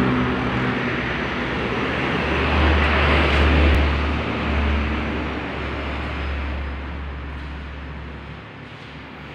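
A motor vehicle's engine and road noise, loud at first and then slowly fading as it moves away, with a deep rumble through the middle.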